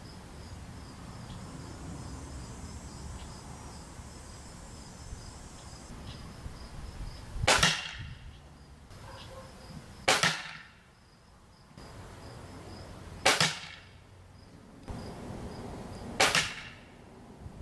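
Gamo Bone Collector Maxxim .22 break-barrel pellet rifle fired four times, about three seconds apart, the first about seven seconds in; each shot is a single sharp report.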